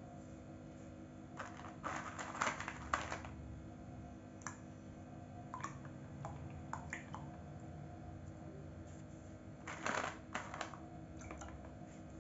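White bhilawa seeds dropped by hand into a plastic mug of water: quick clicks and small splashes in two clusters, about two seconds in and about ten seconds in, with a few single clicks between.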